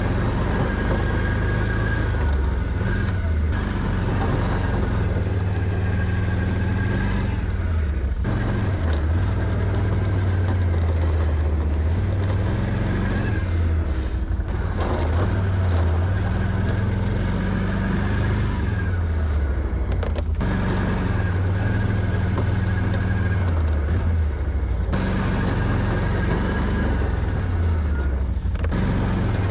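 Can-Am Outlander 650 ATV's V-twin engine running while plowing snow, its revs rising and falling under load, with a few abrupt cuts in the sound.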